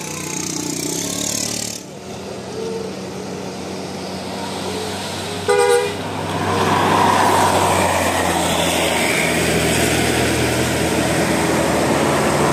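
Bus telolet horn sounding short melodic notes, then one loud horn blast about five and a half seconds in. A bus engine runs underneath and grows louder after the blast.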